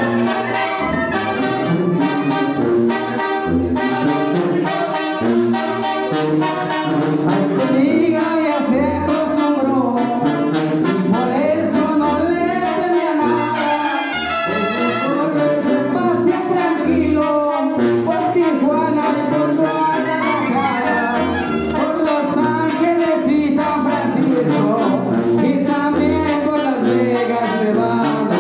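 A live Mexican banda playing a tune: brass melody lines over repeated low sousaphone bass notes, with a steady percussion beat.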